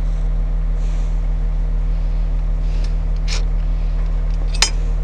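A steady, loud engine hum from a machine running at idle, with two sharp metallic clicks of a wrench on the bracket about three and a half and four and a half seconds in.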